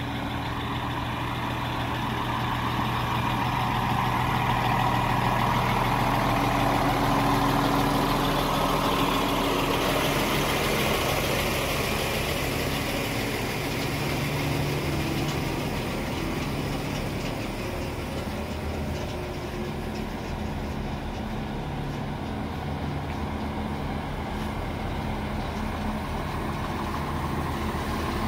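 RA2 diesel railbus's engine idling while the train stands in a station, a steady low running hum that grows louder for several seconds early on.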